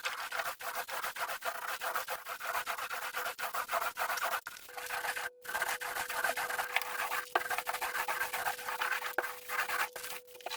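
Scratchy rubbing strokes repeated several times a second against a surface, with a faint steady hum underneath.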